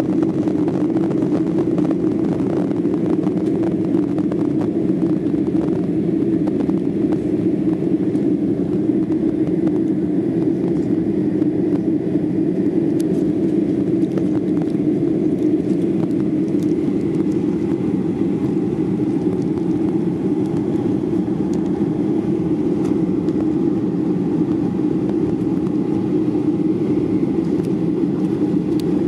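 Boeing 737-800's CFM56-7B turbofan engines and airflow heard inside the cabin during the climb after takeoff, a loud steady drone. A faint higher whine comes in about halfway through.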